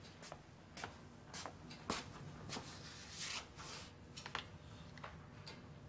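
Faint rustling of a sheet of paper being handled, a scattering of short crinkles and clicks with a slightly longer rustle about three seconds in.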